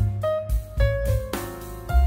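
Background music: a keyboard melody over a heavy bass line, with notes changing every fraction of a second.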